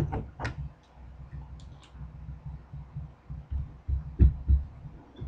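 A few dull low thumps and a click from a hand and dry-erase marker working against a whiteboard, over a steady low hum.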